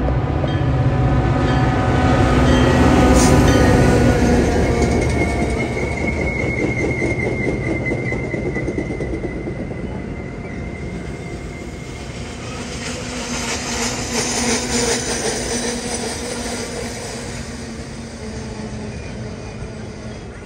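Metra diesel commuter locomotive passing close with a heavy engine rumble, loudest a few seconds in, followed by its bi-level passenger cars rolling by. A thin high wheel squeal rings for several seconds, then the wheels clatter over the rails, and the sound fades as the train moves away.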